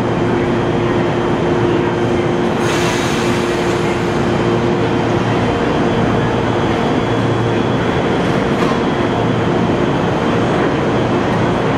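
JR East 115 series electric multiple unit starting off from the platform and rolling slowly forward, with a steady hum from the train under a broad running noise. A short hiss comes about three seconds in.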